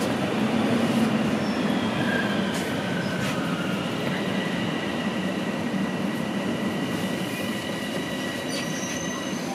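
TTC Toronto Rocket subway train running and braking into a station, heard from inside the car: a steady rumble of wheels on rail that eases as it slows, with a thin high squeal setting in about two seconds in and holding.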